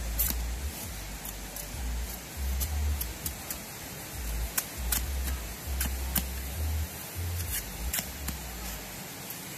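A large knife cutting and stripping fresh bamboo shoots: a run of short, sharp cuts and scrapes, irregular but roughly every half second. A low bass line of background music runs underneath.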